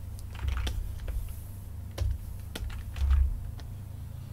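Computer keyboard keys clicking in scattered, irregular keystrokes, several of them with a dull low thud, over a steady low hum.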